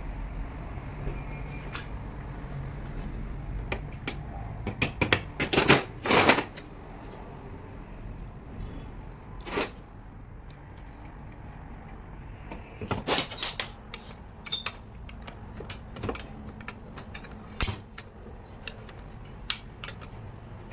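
Irregular clicks and knocks of metal parts and hand tools being handled during starter motor repair, heaviest about five to six seconds in and again around thirteen seconds, over a steady low hum.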